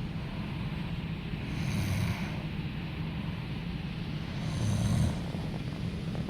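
A man snoring in his sleep, two snores about three seconds apart.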